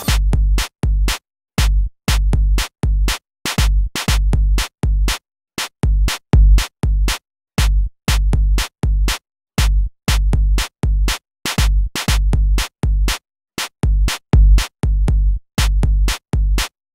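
Outro music: an electronic beat with heavy bass, chopped into short stabs that cut in and out abruptly, about two a second.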